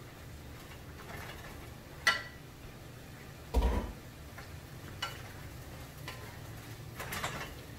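Wooden spoon stirring food in a skillet, with a few light clicks and knocks of spoon on pan, about four in all, the loudest a dull knock about halfway through.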